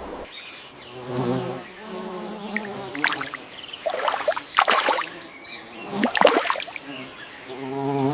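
Insects buzzing in short passes, with a louder burst of brief noises in the middle.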